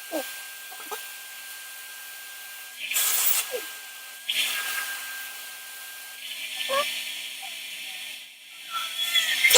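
Vacuum cleaner running with a steady whine, its suction noise surging loudly several times as the nozzle is pressed and dragged over a beard, with short squeaks in between.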